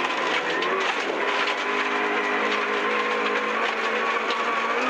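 Engine of a Vauxhall Nova 1400 rally car heard from inside the cabin, pulling at fairly steady revs through a tight hairpin on a rally stage.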